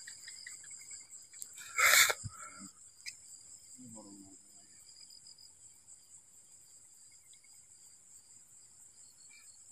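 Crickets chirping in a steady, high, continuous trill. About two seconds in there is a short loud burst of noise, and around four seconds a brief faint murmur.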